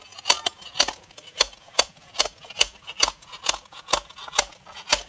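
Logosol Smart Splitter's sliding weight dropped again and again onto its wedge blade, sharp metallic clanks about two a second, driving the blade into a log set near its edge.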